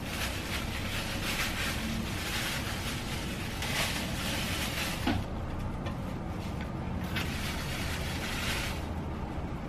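Thin plastic wrap crinkling and rustling in irregular bursts as handfuls of cooked rice are squeezed into rice balls, over a steady low background hum.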